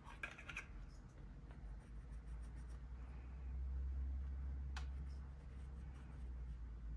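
Coloured pencil scratching lightly on paper as lines are drawn, with a small click about five seconds in and a low hum underneath.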